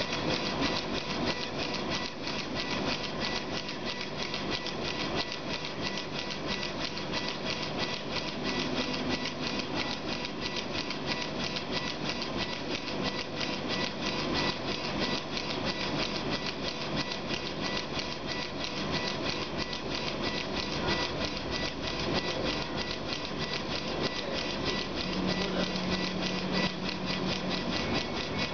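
Laser engraving machine rastering its head rapidly back and forth over a glass bottle on a rotary attachment: a fast, even mechanical chatter from the stepper-driven gantry with a steady whine over it, and a short low drone about three quarters of the way through.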